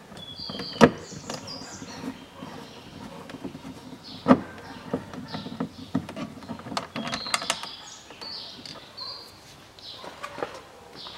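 Phillips screwdriver and hands working at the plastic trim around a Range Rover Evoque's interior door handle: scattered clicks and light knocks, the sharpest about a second in and another about four seconds in.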